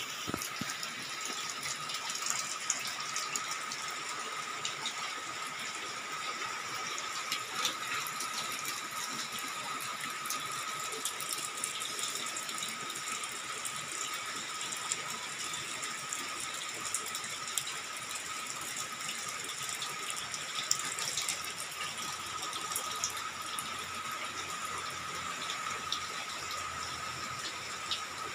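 Steady rain falling, with many small drops ticking on surfaces, and a thin steady high tone alongside.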